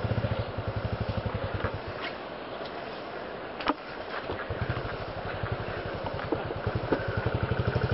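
Royal Enfield single-cylinder motorcycle engine running at low revs with an even low beat as the bike rides slowly down a muddy trail. The beat fades for a second or two about two seconds in, then comes back and grows louder toward the end, with one sharp knock about midway.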